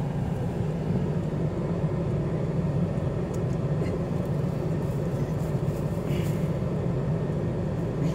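Steady low hum of road traffic, with cars driving past on the street.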